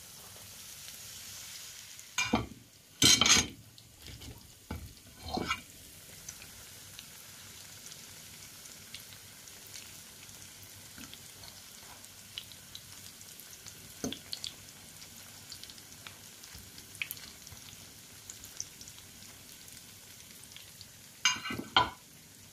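Breaded sausage-and-cheese skewers sizzling steadily in hot oil in a frying pan, with fine crackling throughout. A few louder clatters from handling the skewers and fork in the pan come a couple of seconds in and again near the end.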